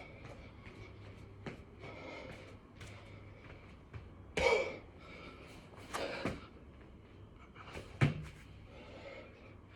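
A person doing six-count burpees: repeated hard breaths and knocks of hands and feet on the floor, the loudest hits about four, six and eight seconds in.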